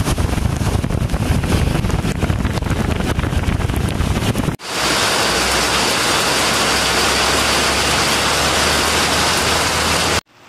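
A car driving along a flooded road in a heavy downpour: low engine and tyre rumble mixed with water spray and rain. About four and a half seconds in it cuts abruptly to the steady hiss of heavy rain pouring onto pavement.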